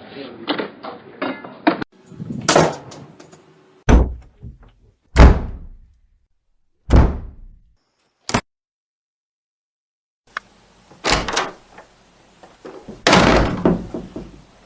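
A series of door slams, about half a dozen separate sharp bangs a second or two apart, each with a short fading tail. It opens with a quick run of clicks and rattles, and there is a silent gap of about two seconds in the middle.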